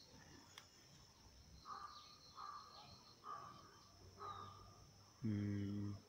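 A crow cawing four times, faint and harsh, under a second apart. A man's voice sounds briefly near the end.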